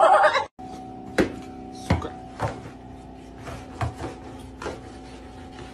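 A cat's loud yowl, cut off half a second in, then a steady hum with a handful of light, irregular knocks.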